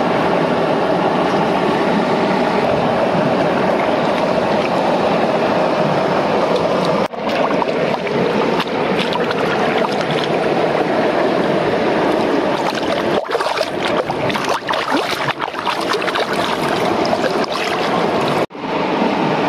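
Waterfall rushing: a steady, loud wash of falling water. It breaks off briefly about seven seconds in, again around thirteen seconds and near the end, and scattered short knocks sound through the second half.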